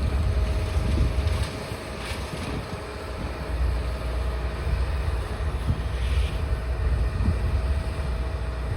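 Wind buffeting the microphone over the steady running of a demolition machine, with a few faint crunches of debris being broken.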